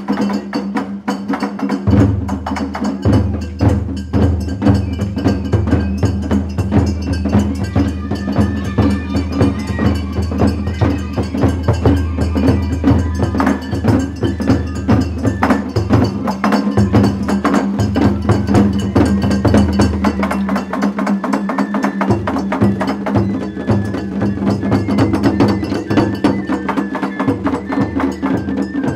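Festival hayashi played on a dashi float: deep drum beats under a fast, steady clatter of small percussion, the drums coming in about two seconds in and pausing briefly a couple of times.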